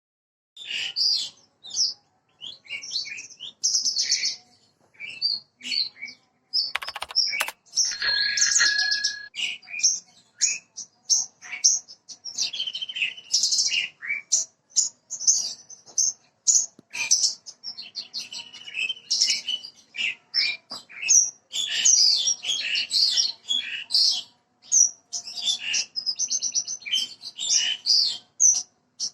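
Javan bush lark (branjangan), parva race, singing a long, fast, varied song of high chirps and short trills with brief pauses, a lure song for getting young birds to sing. A few sharp clicks about seven seconds in.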